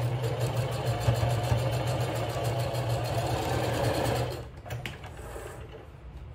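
Sewing machine stitching steadily along a box-corner seam, stopping about four seconds in; a few faint clicks follow.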